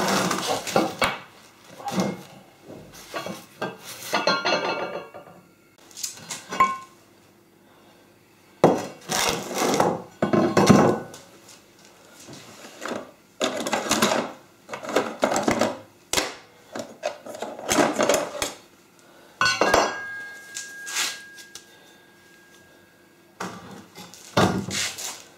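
Steel plates and short tube pieces clanking and scraping on a workbench as they are picked up, shifted and set down, in irregular bursts with short pauses between.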